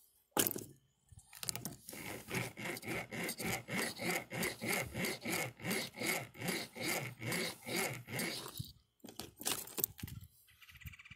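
Steel snare cable being worked back and forth against a nail in a wooden table, a rhythmic rasping of about two strokes a second for several seconds: the snare is being loaded so its loop slams shut. A sharp knock comes just before the strokes begin, and a few clicks follow near the end.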